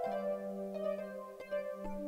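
Soft instrumental break of a worship song: a held low note with a few picked notes sounding above it.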